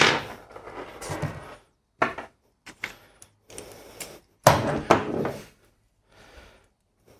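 Tools and engine parts being handled: a loud clunk at the start and another about four and a half seconds in, with lighter clicks and knocks between.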